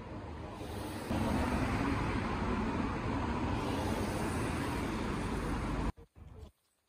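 Steady road traffic noise from a city street, stepping up in level about a second in and cutting off abruptly near the end.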